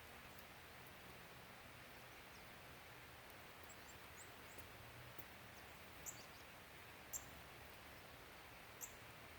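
Quiet outdoor ambience with a few short, very high chirps from small birds calling, the clearest about six, seven and nine seconds in.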